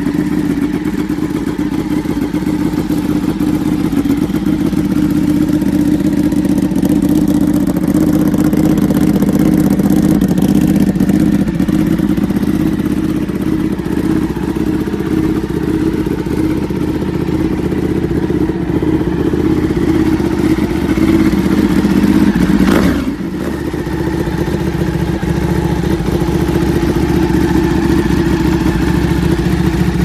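Ducati Panigale 1299's Superquadro V-twin idling steadily through an Austin Racing aftermarket exhaust, with only slight swells in level. About 23 seconds in the sound breaks off abruptly and the idle carries on, a little quieter.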